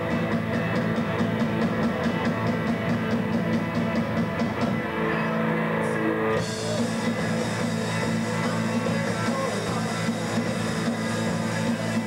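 A rock band playing live, with drum kit and guitars. A steady hi-hat beat drives the first few seconds, the top end thins out briefly, and the full band comes back in with cymbals about six seconds in.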